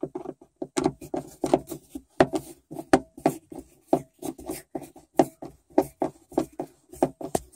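A Torx screwdriver turning a screw out of a plastic sun visor clip, giving a rapid, irregular run of short clicks and scrapes, about four a second, that starts about a second in.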